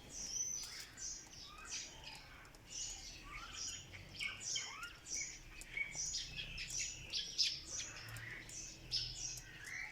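Many quail calling at once: short chirps and brief rising calls overlapping in a dense, continuous chatter.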